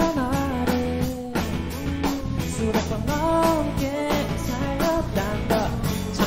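Live K-band rock performance: a male lead vocal sings a gliding melody over a steady drum beat, electric bass and guitar.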